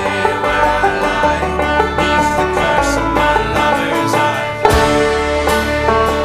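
Five-string banjo, its top string tuned up a whole step to A, fingerpicked in fast continuous rolls, with a band's low bass and drums underneath. A sharp, louder accent hits about four and a half seconds in.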